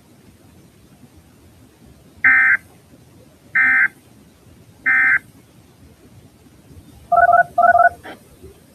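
EAS end-of-message signal: three short bursts of SAME digital data tones about 1.3 s apart, closing a weather radio alert. Near the end come two quick two-tone beeps like touch-tone dialing.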